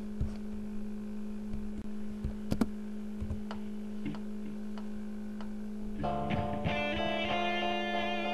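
Background guitar music: sparse plucked notes over a steady low held tone, with fuller, busier picking coming in about six seconds in.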